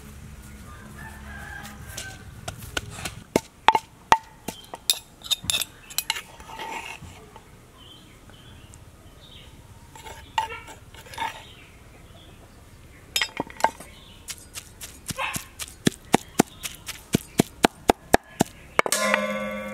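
Chickens clucking now and then, with sharp knocks. In the second half a cleaver chops minced pork on a wooden cutting board at about three strokes a second. Just before the end a rooster crows loudly.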